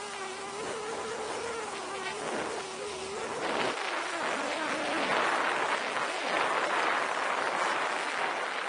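Small outboard motor buzzing steadily at cruising speed, its wavering tone fading after about three seconds, over a steady rush of wind and water.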